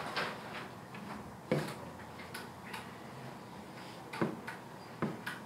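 Writing strokes: scattered short taps and scratches of a pen or marker being written with, with sharper knocks about a second and a half and about four seconds in.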